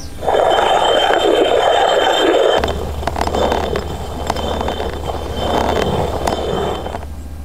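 Black peppercorns being ground in a hand-turned stone quern: the upper stone rasps round on the lower one with a gritty grinding noise and scattered small clicks. Loudest in the first two seconds, then softer in swells, dying away near the end.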